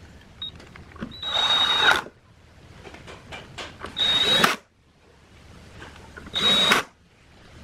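Power drill run in three short bursts, each under a second, with a steady high whine and quiet handling clicks in between.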